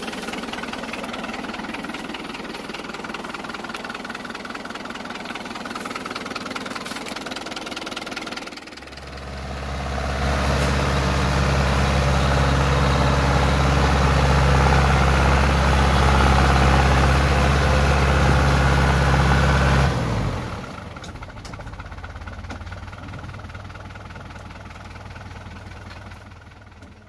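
Iseki 6500 tractor's diesel engine running, then revving hard under load for about ten seconds from roughly nine seconds in as it tries to climb a steep muddy slope, before dropping back to a lower, steadier run that fades near the end.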